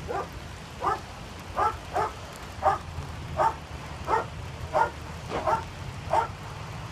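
Police dog barking repeatedly, about a dozen short barks at one to two a second, over a steady low hum.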